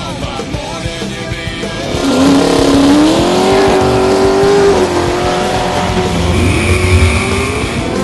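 Drag car doing a burnout: about two seconds in the engine revs up and holds at high revs while the rear tyres spin and squeal, with music underneath.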